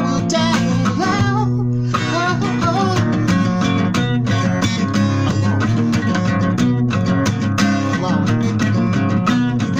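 Acoustic guitar strummed steadily with no vocals, the instrumental ending of a slow song.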